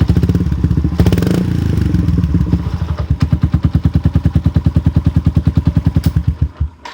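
Honda Little Cub's single-cylinder four-stroke engine exhausting through an aftermarket Outstanding colour silencer muffler. It is revved once about a second in, falls back to an even, pulsing idle, and the engine stops near the end.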